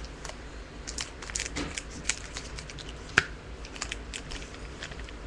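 Trading-card pack wrapper being opened by hand: a run of crinkling and tearing crackles, the sharpest about three seconds in.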